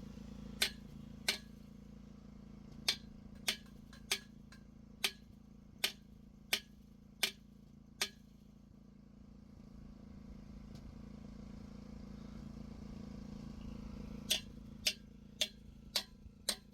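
Sharp taps struck at a steady pace, about one every two-thirds of a second, stopping about eight seconds in and starting again near the end, over a low steady hum.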